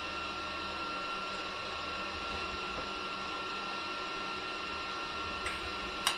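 Steady mechanical hum with a constant high whine, unchanging throughout, and a single sharp click near the end.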